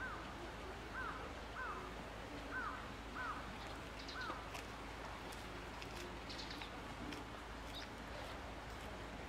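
A bird calling outdoors: six short, arched notes over the first four seconds or so, followed by a few fainter, higher chirps.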